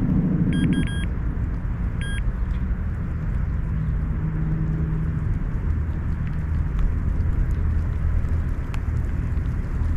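A few short electronic beeps from a carp bite alarm, a quick pair about half a second in and a single one about two seconds in, over a steady low rumble.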